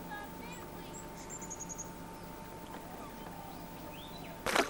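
Faint bird chirps and a short high trill over a steady low hum, followed by a single sharp knock near the end.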